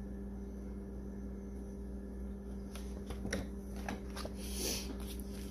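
Paper rustling and a few soft clicks as a picture book is handled and turned over, starting about three seconds in, over a steady low hum.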